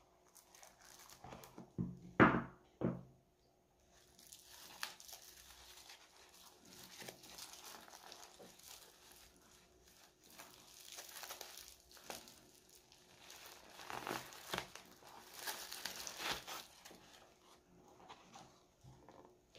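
Packaging being handled and unwrapped: wrapping crinkling and tearing, with a few sharp knocks about two to three seconds in, then crinkling that comes and goes.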